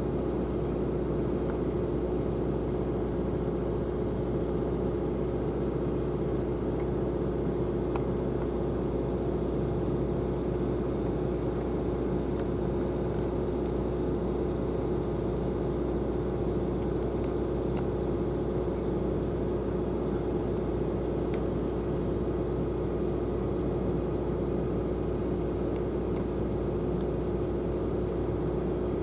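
A steady, unchanging machine drone with a constant hum.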